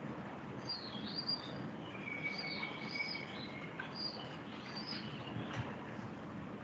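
Birds chirping in the background: a run of short, high, curving calls with one longer held note partway through, over faint steady room noise.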